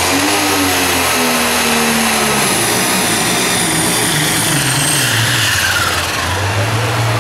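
Modified John Deere 7520 diesel pulling tractor at full power pulling a sled, with a high turbo whine over the engine. Its pitch falls near the end as the engine loads down under the sled.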